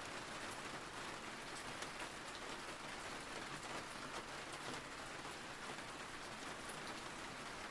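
Soft, steady rain falling: a faint, even hiss with scattered tiny drop ticks.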